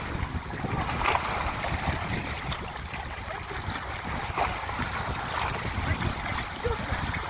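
Wind rumbling on the microphone over the wash of sea waves.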